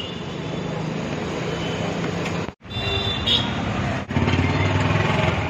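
Road traffic noise with steady engine hum from passing vehicles. It drops out briefly about two and a half seconds in, where the footage is cut.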